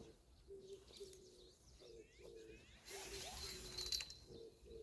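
A dove cooing: short low notes repeating in a steady rhythm. Small birds chirp faintly, and a brief hiss comes up around the middle.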